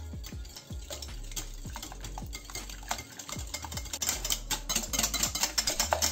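Metal wire whisk beating eggs with sugar, salt and baking powder in a glass bowl: a fast, steady rattle of the wires clicking against the glass, growing denser and louder near the end.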